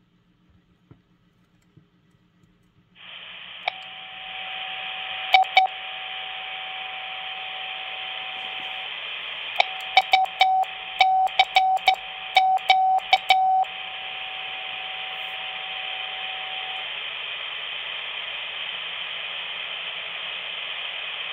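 Quansheng UV-K5 series handheld radio putting out static hiss from its speaker, starting about three seconds in, with a single CW (Morse) tone over it. The tone is held steady for a few seconds, then keyed on and off in a quick run with sharp clicks, then held steady again before it stops while the hiss carries on.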